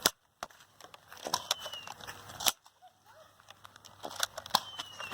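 Sharp clicks of Nerf blaster pistols firing and being primed, with smaller ticks and rustling between; the loudest clicks come at the very start and about two and a half seconds in.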